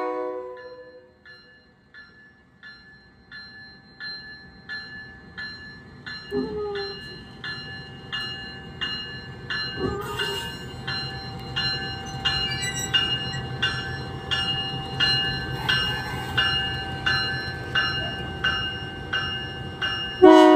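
Diesel freight locomotive's bell ringing at a steady beat of about one and a half strikes a second, growing louder as the engine crawls past, just after its horn cuts off. A low engine rumble runs under it, with two brief squeals about 6 and 10 seconds in.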